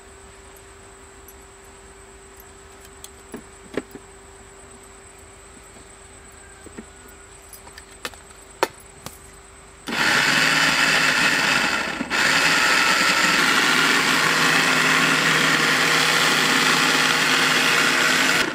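Electric mixer grinder grinding crumbled bread. After a few light handling clicks, the motor starts about ten seconds in and runs loud and steady, stopping briefly about two seconds later and restarting. It cuts off suddenly near the end.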